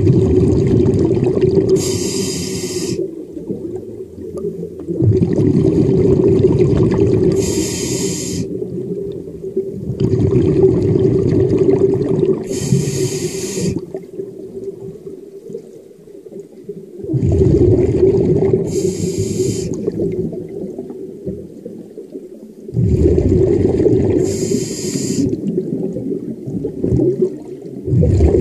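A diver breathing underwater through a scuba regulator, heard close to the camera. Five breaths, each with a short high hiss about every five to six seconds, between long stretches of low rushing, bubbling noise.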